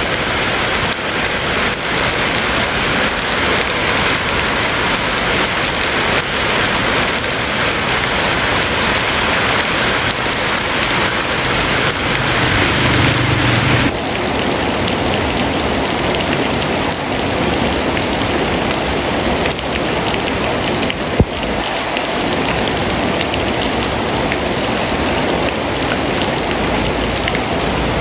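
Steady rain falling on a surface, an even hiss of many drops. About halfway through, the sound changes abruptly to a slightly duller rain, and a single sharp click stands out about two-thirds of the way in.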